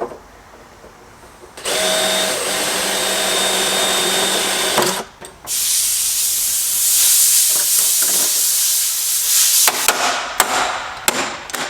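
Handheld power drill running in two bursts: the first lasts about three seconds with a steady whine, and after a short pause the second is a hissier run of about four seconds. A few sharp clicks follow near the end.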